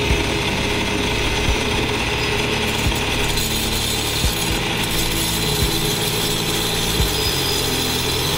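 Bench tile saw with a thin diamond blade running, its motor humming steadily, as a shard of glazed china is fed into the blade and cut. The cutting noise grows harsher from about three seconds in.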